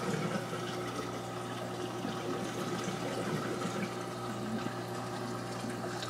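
Steady running-water noise with a low, even pump hum from a reef aquarium's equipment.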